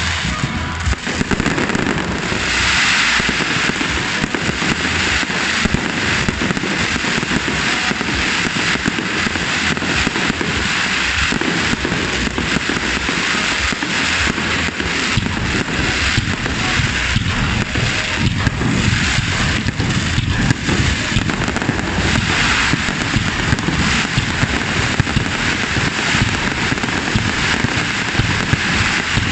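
Aerial fireworks going off in a dense, continuous barrage of rapid bangs and crackling, with no let-up.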